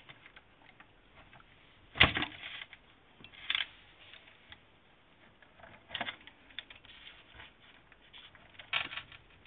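Small metal RC-car parts clicking and tapping together as a bearing on a driveshaft is worked by hand into a metal steering knuckle: one sharp click about two seconds in, then a few softer clicks.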